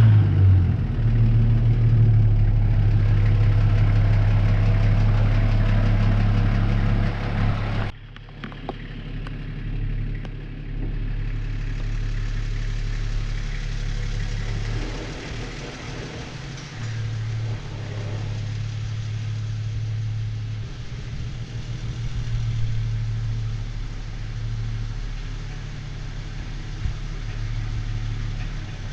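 A vehicle engine idling with a steady low hum. It drops off abruptly about eight seconds in, then runs on more quietly, its hum swelling and fading.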